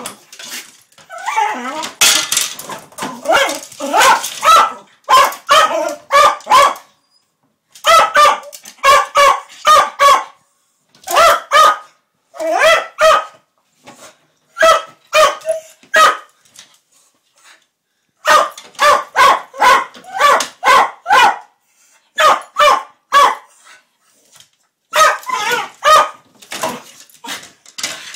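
A West Highland White Terrier barking at a washing machine's detergent drawer, in bouts of quick, sharp, yappy barks a few a second with short pauses between bouts.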